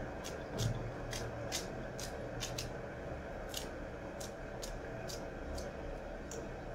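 Fresh coriander being cut by hand with a small blade: about a dozen crisp snips through the stems, unevenly spaced, roughly two a second.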